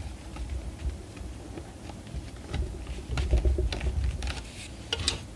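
Scattered light clicks and taps of a graphics card's metal back plate and screws being handled and worked loose, with low handling bumps that get a little louder about three seconds in.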